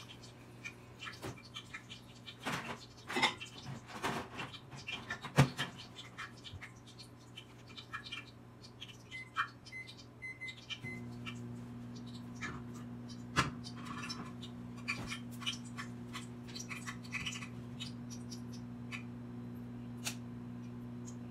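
Small clicks and scratchy rustles close to the microphone as a mascara wand is worked onto the lashes and handled, over a steady low electrical hum that gets louder about halfway through.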